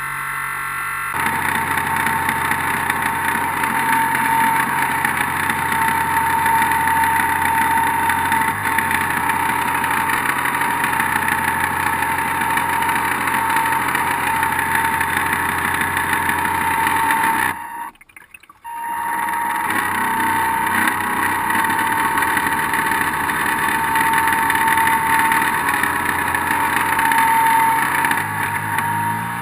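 Electric drive of an RC harbour boat, its 380-size brushed motors running with a steady high whine. The whine picks up about a second in, cuts out for about a second roughly two-thirds through, then runs again and eases off near the end.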